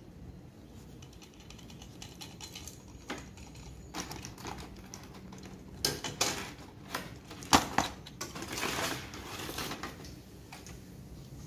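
Plastic toy train pieces being handled: scattered light clicks and knocks, loudest a little past halfway, followed by a couple of seconds of rustling.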